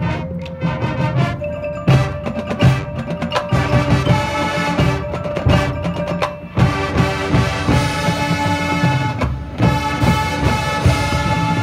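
Marching band playing live: held wind chords with percussion hits throughout, including mallet percussion and timpani from the front ensemble.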